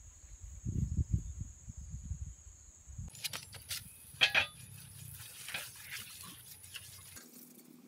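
Low rumbling, then a cloth wiping a rusty bicycle frame, with scattered small clicks and knocks of the metal tubes and one louder knock about four seconds in.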